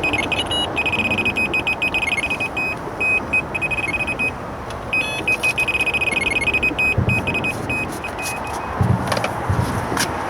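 Electronic carp bite alarm bleeping in rapid strings of high beeps, in two runs separated by a short gap, over a steady hum of road traffic.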